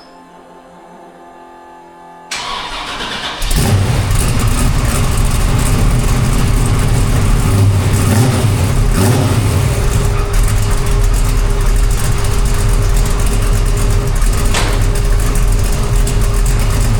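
A 1969 Chevrolet C10's 454 big-block V8 cranking briefly and catching about three and a half seconds in, then idling steadily through a custom stainless exhaust with Flowmaster Flow FX mufflers. It is a cold start, and the note is super tame, not too loud.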